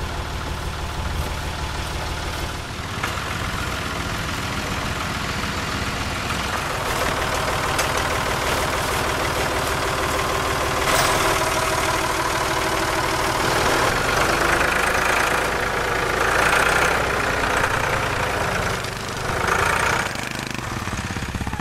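An engine idling steadily, with canvas tarps dragged and rustled over it at times.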